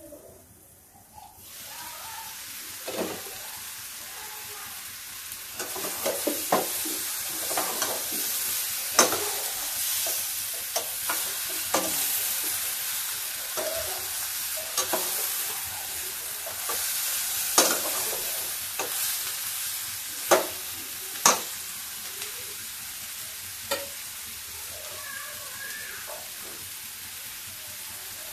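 Brinjal pieces sizzling in oil in a stainless steel kadai, the sizzle rising once the lid is lifted about a second in. A slotted metal spatula stirs and scrapes through the pan, with sharp clinks of metal on metal every few seconds.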